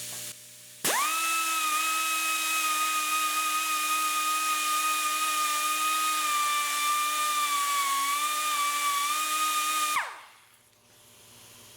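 A handheld electric power tool's motor runs at a steady whining speed, polishing the surface of the cylinder block. It starts about a second in and winds down and stops near the end.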